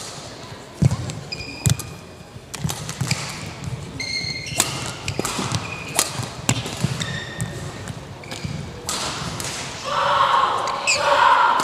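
Badminton court sounds between rallies: scattered sharp hits and thuds like rackets striking shuttlecocks, and short high squeaks like shoes on the court mat. A raised voice comes in near the end.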